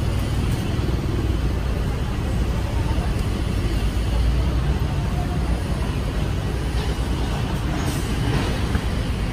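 Steady low rumble of street traffic noise.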